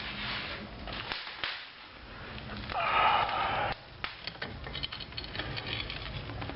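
Wood fire burning in a brick corner fireplace, with many sharp crackles and pops. About three seconds in comes a louder rushing hiss of about a second.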